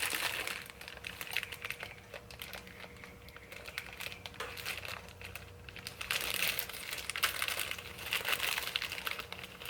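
Plastic parts bag crinkling and rustling as it is handled, in irregular crackles that grow busier in the second half.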